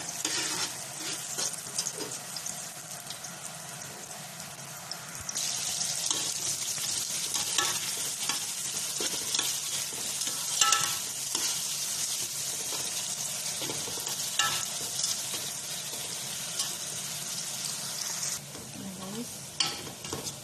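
Chopped onion and garlic frying in hot oil in a large aluminium pot, a steady sizzle with occasional scrapes and knocks of stirring. The sizzle grows louder about five seconds in and eases a little near the end.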